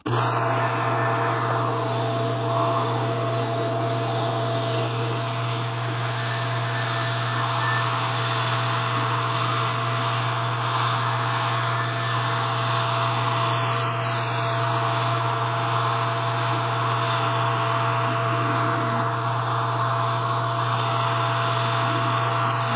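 Metal lathe running at a steady speed while its cutting tool takes a cut on a spinning round bar: a steady motor hum and whir with one constant tone, unchanging throughout.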